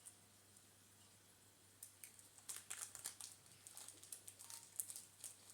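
Faint, irregular light clicks and crinkles from hands handling Play-Doh and its plastic pieces at a table, starting about two seconds in.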